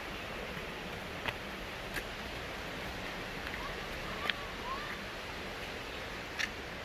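Stream water rushing steadily, with a few short, sharp ticks scattered through it.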